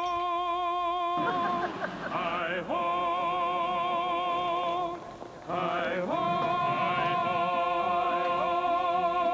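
Music: a wordless, voice-like melody of long held notes with a wide vibrato, each one swooping up into pitch, with a short break about five seconds in.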